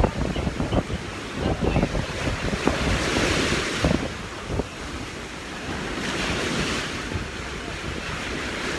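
Sea surf washing with wind buffeting the microphone in uneven low gusts; a wave's hiss swells up about three seconds in.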